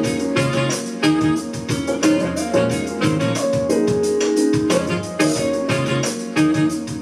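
Music played through the TCL 55C825 TV's built-in speakers: keyboard chords over a quick, steady drum beat.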